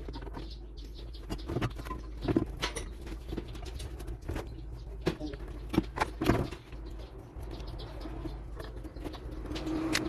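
Scattered clicks and rattles of plastic wiring-harness connectors and cables being handled behind a truck's stripped dashboard, over a low steady hum. The sharpest clicks come a couple of seconds in and again around six seconds.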